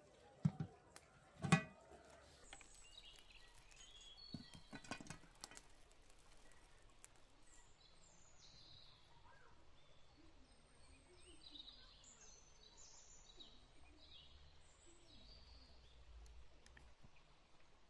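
A couple of sharp metal clanks as a pan and its lid are handled on a grill over a wood fire, then small birds chirping over and over, high-pitched and short.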